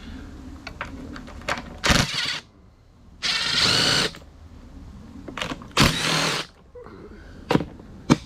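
Impact driver running in three short bursts, loosening the bolts that hold the ATV's plastic body panels, with small clicks and clanks of the bolts and tool in between.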